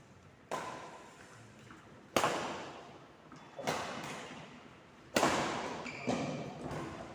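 A ball being struck back and forth in a rally in a reverberant indoor court: five sharp hits, mostly about a second and a half apart, each ringing on and fading.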